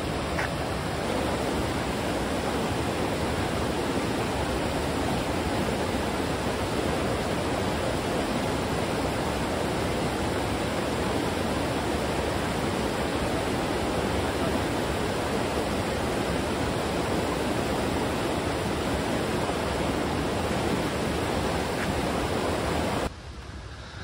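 Steady rush of fast-flowing water from the stream near Toorongo Falls, which drops away sharply about a second before the end.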